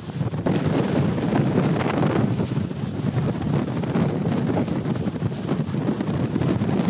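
Strong wind buffeting the microphone in a steady, heavy rumble.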